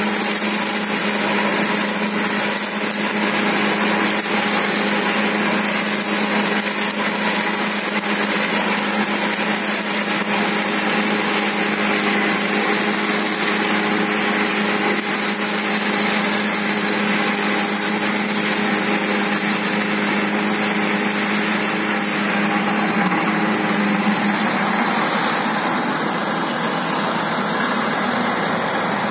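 John Deere 5075 tractor's diesel engine running steadily under load, pulling a Happy Seeder through rice stubble, with the seeder's spinning straw-chopping rotor adding a whirring rush. It grows a little fainter in the last few seconds as the tractor moves away.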